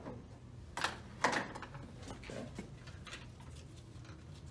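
Metal parts being handled: two sharp clicks about a second in, then a few fainter knocks, as a CVT valve body is worked loose and lifted off the transmission case.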